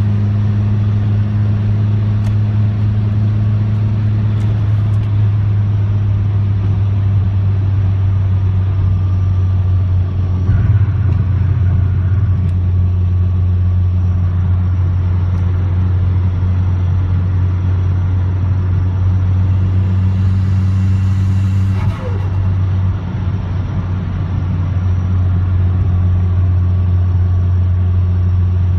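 Cabin sound of a 2003.5 Mazdaspeed Protege's turbocharged 2.0-litre four-cylinder engine cruising at a steady 3,000 rpm: a constant drone over road noise, dipping briefly about three-quarters of the way through.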